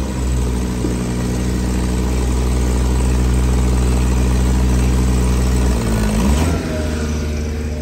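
GMC bucket truck's gasoline engine running steadily. Its pitch dips and comes back up briefly about six seconds in, and it is a little quieter after that.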